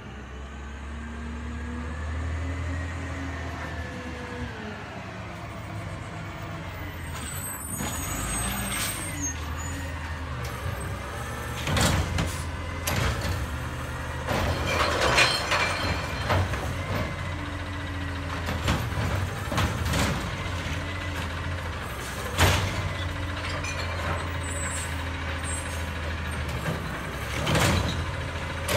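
Bridgeport split-body automated side loader garbage truck drives up with its engine running, its pitch rising and falling as it approaches. It pulls up to the curb, and its air brakes hiss sharply several times as it stops and creeps along the carts.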